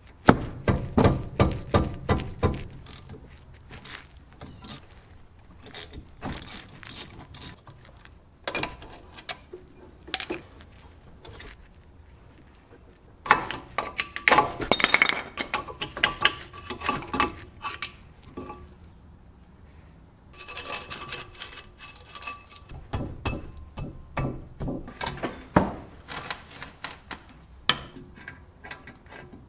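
Metal tools and car parts clinking and knocking in irregular bursts, with a quick run of strikes near the start and a few more clusters of clanks later on, some of them ringing briefly.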